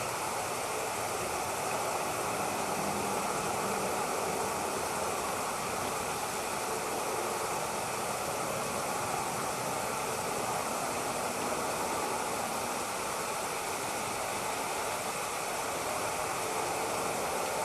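Steady rushing background noise, even throughout, with no distinct calls or knocks.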